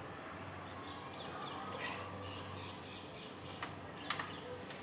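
Birds calling outdoors, with a few short calls about halfway through. Three sharp clicks follow near the end.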